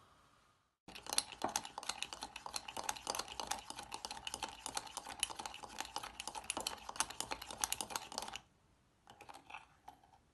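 Metal spoon rapidly beating coffee, sugar and a spoonful of hot water in a ceramic mug into a creamy paste, clicking against the mug for about seven seconds. It stops, then gives a short second round of clicks near the end.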